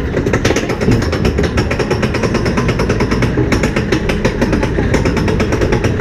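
Amusement ride car clattering rapidly as it moves, an even rattle of several knocks a second.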